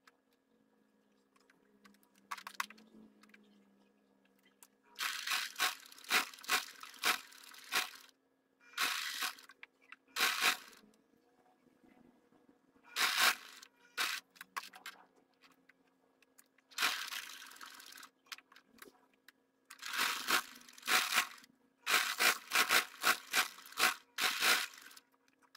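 Domestic sewing machine stitching in short runs of one to three seconds, stopping and starting about six times as a folded fabric edge is topstitched.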